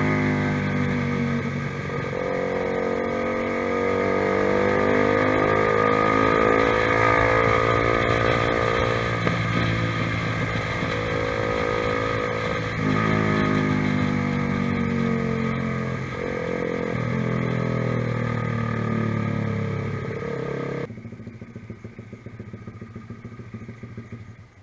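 Honda CBR150R's single-cylinder engine through an aftermarket ProLiner TR1-R exhaust, on the move, its pitch climbing and dropping several times as the revs rise and fall. About 21 seconds in the loud engine note cuts off suddenly, leaving a much quieter, uneven sound.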